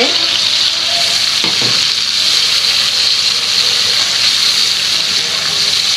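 Prawns and vegetables frying in hot oil in a frying pan, a steady sizzle as they are stirred, with a short knock of the utensil about a second and a half in.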